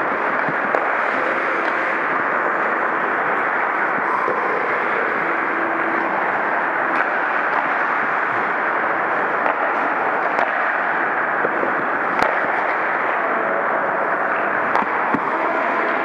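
Muffled, steady rushing noise of skaters on an ice hockey rink, with a few sharp clacks of hockey sticks and puck scattered through it.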